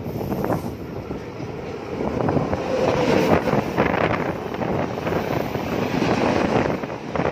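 An oncoming express train hauled by a WAP-7 electric locomotive passing close alongside at speed, heard from the open door of a moving train: rushing air, wind buffeting the microphone and wheels clattering on the rails. It grows louder about two seconds in as the locomotive and coaches draw level.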